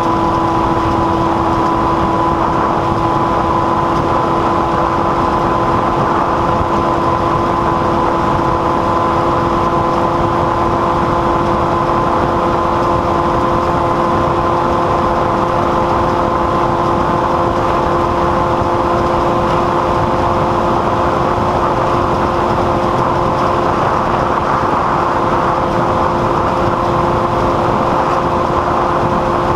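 A machine running steadily: a constant drone with a few held tones that creep slightly upward in pitch.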